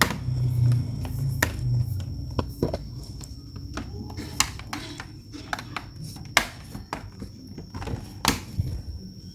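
Irregular sharp clicks and taps from hands working on a laptop's casing and parts, about a dozen over several seconds, over a faint steady high-pitched tone.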